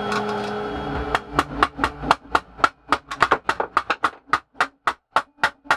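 A mallet tapping a screwdriver's handle in a quick, steady run of strikes, about four a second, to shock loose the screw holding the top gear in a mitre saw's gearbox.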